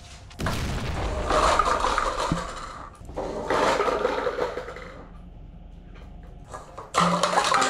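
Paper cups toppling and clattering across a wooden floor, in two rushes of two seconds or so, with another starting near the end.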